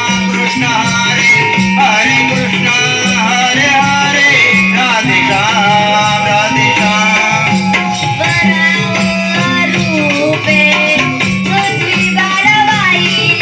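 A boy's voice singing a Krishna-leela devotional song over a loudspeaker system, with instrumental accompaniment and percussion keeping a steady rhythm.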